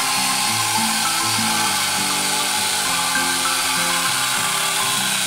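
Small electric chainsaw running steadily as its chain cuts down into a log, over background music.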